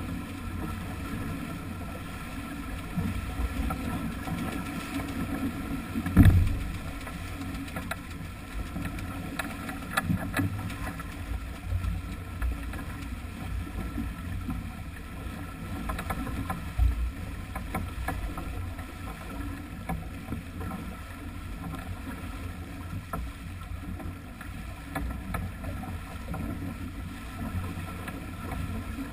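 Water rushing and splashing along the hull of a heeled sailing yacht moving fast under sail, with wind buffeting the microphone in low rumbling gusts, the strongest about six seconds in.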